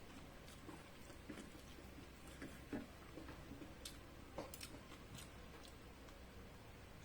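Faint chewing and mouth sounds of someone eating chicharon (pork cracklings), with a few scattered light clicks.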